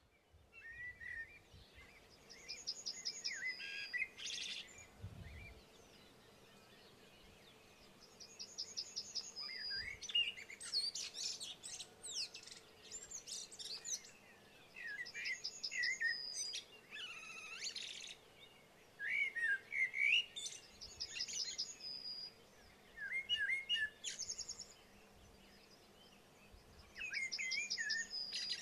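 Songbirds singing. One bird repeats a phrase about every six seconds, a fast high trill followed by lower warbled notes, with other birds calling in between.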